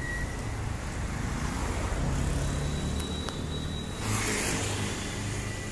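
Road traffic: cars and motor scooters passing with their engines running, and a scooter passing close about four seconds in.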